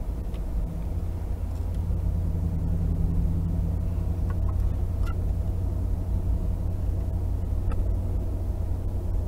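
Steady low rumble of a vehicle on the move: engine and tyre noise on the highway.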